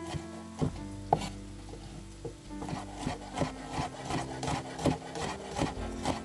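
Chef's knife chopping garlic cloves on a wooden cutting board: the blade knocks on the board about twice a second, a little faster in the second half.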